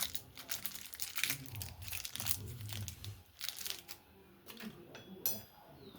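Crinkling and scraping handling noises in quick irregular strokes, with one sharp metallic clink that rings briefly about five seconds in.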